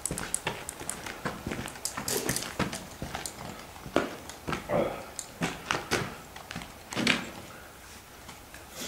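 A person moving about on the ground near the camera: irregular footstep taps and scuffs, with a few short, louder rustles.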